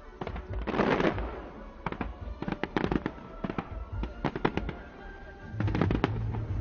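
Fireworks going off in quick succession: clusters of sharp bangs and crackles, with a louder burst about a second in and another cluster near the end, over a low rumble.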